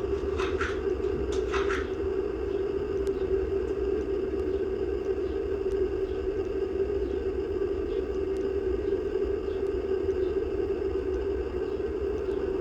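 Outdoor ambience made up of a steady low hum and rumble. A few short high-pitched sounds come in the first two seconds, and faint ticks are scattered through the rest.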